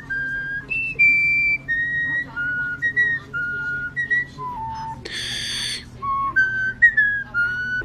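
European starling whistling a tune: a run of clear, steady notes that step up and down in pitch, each held a fraction of a second. About five seconds in, a short harsh rasp breaks in.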